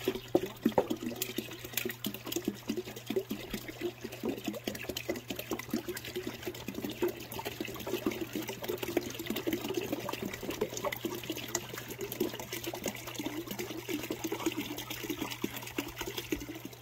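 Birch sap dripping from a tap into a hanging plastic jug, a fast, steady patter of drops; the tree is running heavily.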